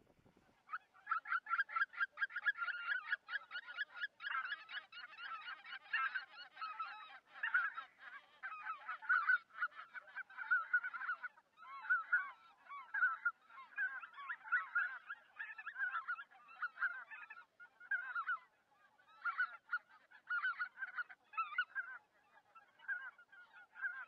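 A large flock of waterbirds calling, with many short calls overlapping in a continuous chorus that starts suddenly about a second in.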